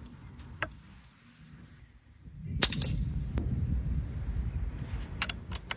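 An Air Arms XTI sub-12 ft-lb air rifle fires once, a sharp crack a little over halfway through. A moment later the pellet strikes the steel saw-blade target and knocks its reset paddle down. A single faint click comes before the shot and a few quick clicks near the end.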